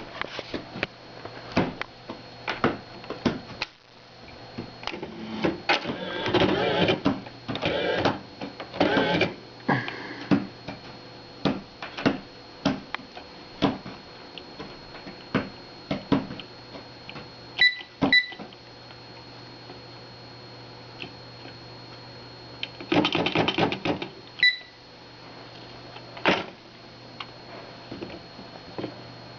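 Smith Corona Ultrasonic 350 Messenger electronic typewriter typing: sharp key strikes, some in fast bursts, over the machine's steady motor hum. A short electronic beep sounds twice in quick succession about two-thirds of the way through, then once more a few seconds later.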